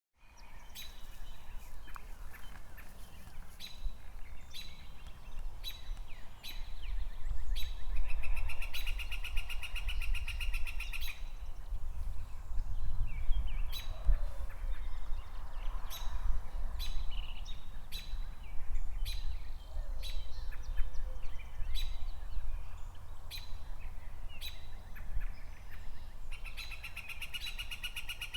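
Songbirds chirping and calling. A rapid trill lasting about three seconds comes in about eight seconds in and again near the end. A steady low rumble runs underneath.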